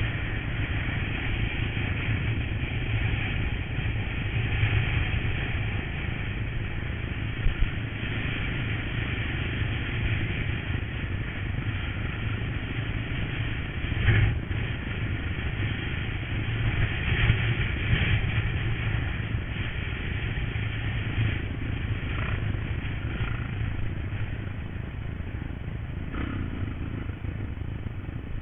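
Honda trail motorcycle engine running steadily during a ride, with a few short knocks and clatters along the way.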